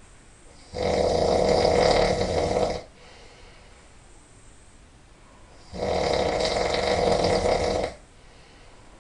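A person snoring really loud: two long snores about five seconds apart, each lasting about two seconds, with quiet between them.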